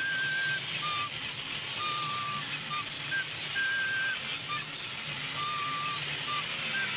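A flute playing a slow, plaintive tune of pure notes, some held and some short, moving mostly between a higher and a lower pitch, over the steady hiss and low hum of an old film soundtrack.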